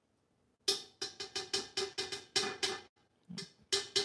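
Plastic spoon knocking rapidly against a stainless steel pot, about five knocks a second, each with a short metallic ring at the same pitch; a pause, then a few more knocks near the end. The spoon is being knocked to shake garlic paste off into the oil.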